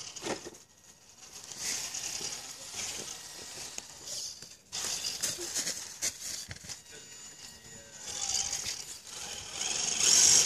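Gmade Sawback RC scale crawler crawling over roots and leaf litter: its electric motor and gears whining faintly under the rustle and crackle of dry leaves under its tyres, with a louder surge of rustling near the end.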